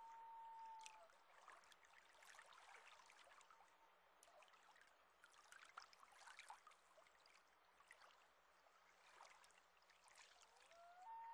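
Faint common loon wails: a long held note that slides up into place and fades about a second in, and another that begins near the end. Between them, faint water trickling and lapping.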